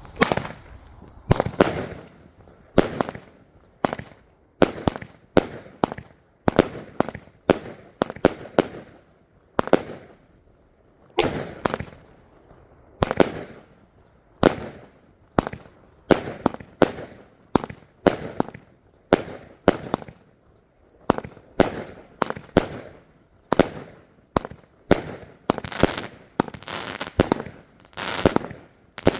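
Fireworks cake firing a long string of sharp bangs, roughly one to two a second at uneven spacing, coming faster and closer together near the end.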